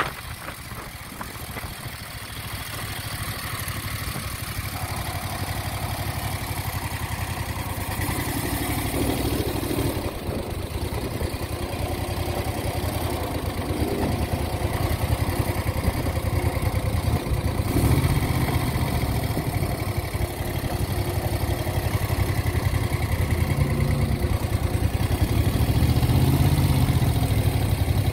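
1970 Moto Guzzi Ambassador's air-cooled V-twin engine running as the motorcycle is ridden, growing gradually louder through the stretch.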